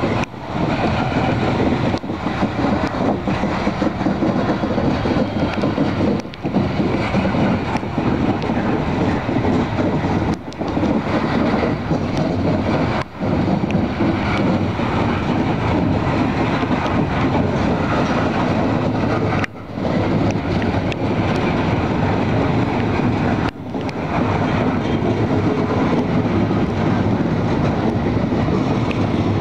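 Freight train of mostly empty coal hopper cars rolling past: steel wheels on rail, a steady rumble and rattle, with a few brief dips in level.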